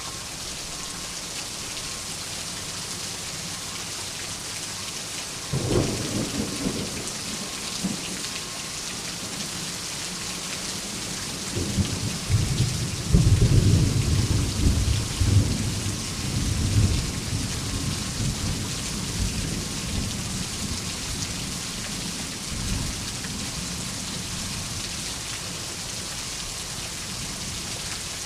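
Steady rain with thunder: a sudden thunderclap about five seconds in, then a longer, louder rumble that builds from about twelve seconds, peaks, and dies away over several seconds.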